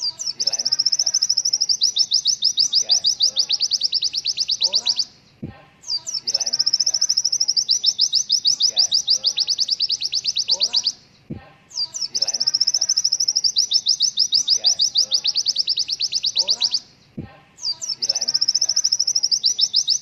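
Looped recording of a white-eye (pleci) song: long runs of fast repeated high notes, each phrase about five seconds long. The phrase repeats almost identically four times, with a short gap and a soft thump at each restart.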